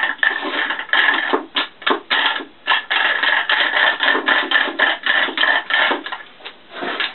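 Metal parts of a 250 mm split-type lathe chuck clicking and rattling as they are turned by hand with the chuck wrench to bring the jaws into gear. It is a rapid, irregular string of metallic clicks with a faint steady ring under it.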